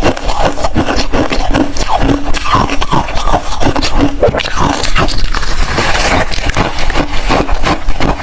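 A person chewing ice, close to the microphone: a steady run of sharp crunches and cracks with no pause.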